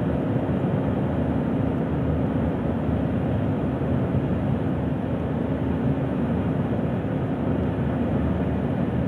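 Car driving at speed: steady road and engine noise with a constant low hum.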